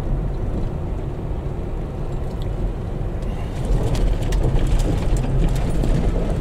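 Car running along a road, heard from inside the cabin as a steady low engine and road rumble. From about halfway through it is joined by a scatter of small clicks and crackles as the tyres roll onto gravel.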